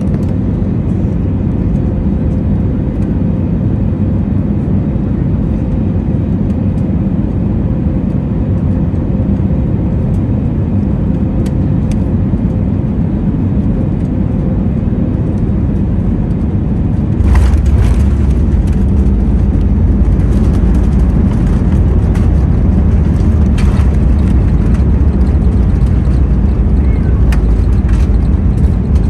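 Airbus A320neo (CFM LEAP-1A engines) cabin noise: a steady rumble of engines and airflow. About two-thirds of the way through comes a knock, then a sudden step up to a louder, deeper rumble, as the wheels meet the runway and the plane rolls out.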